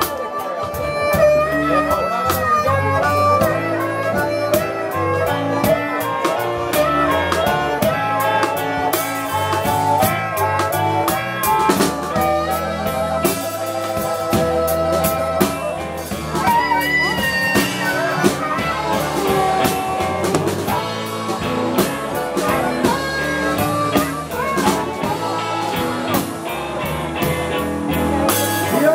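Live blues band playing: an amplified harmonica solo with bending notes over electric guitar, electric bass and a drum kit keeping a steady beat.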